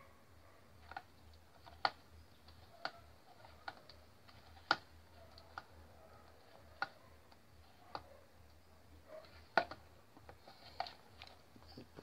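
Irregular light clicks and ticks, about a dozen sharp ones spread out with no rhythm, from hands working on an unpowered fan's wire splice and plastic motor housing.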